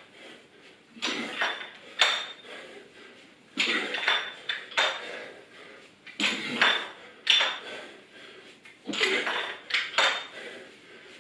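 A pair of metal dumbbells clinking and knocking during repeated ground-to-overhead presses. The sharp, ringing clinks come in twos, one pair about every two and a half seconds, once for each rep.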